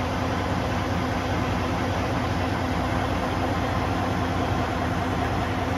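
Semi-truck's diesel engine idling steadily, a constant low hum.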